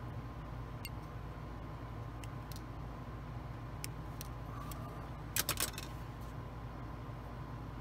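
Sprue cutters snipping small plastic model-kit parts off their sprue: scattered sharp clicks, with a quick cluster of louder clicks a little past halfway, over a steady low hum.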